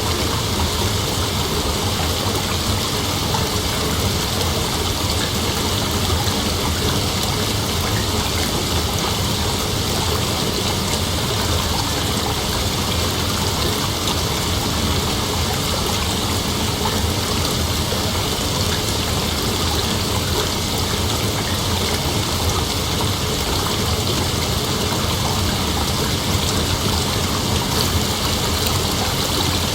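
Rain falling steadily: a dense, even hiss with no thunderclap standing out.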